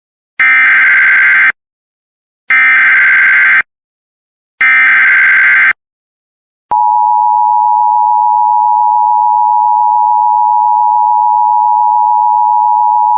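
Emergency Alert System tones: three identical bursts of SAME header data, each about a second long with short gaps between them. About seven seconds in, the steady two-tone EAS attention signal begins and keeps sounding, announcing an emergency alert.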